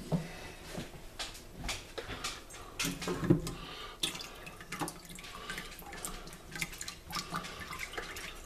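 Chicken broth draining and dripping from a wire mesh strainer full of boiled bones into a pot below, with scattered light clicks and knocks as the strainer is shifted.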